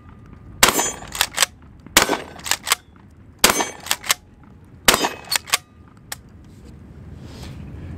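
12-gauge Tristar Cobra III Marine pump-action shotgun fired four times, about a second and a half apart. Each shot is followed about half a second later by a quick double clack as the pump is worked back and forward to eject the shell and chamber the next round.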